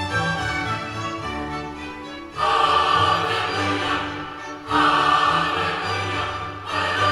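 Orchestral music with a choir, played back through Bose Companion 2 Series III computer speakers. It swells loudly about two and a half seconds in and again just before five seconds.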